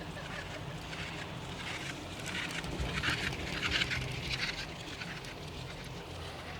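Chairlift ride: a steady low rumble with a swell of rattling clatter that peaks in the middle and then eases.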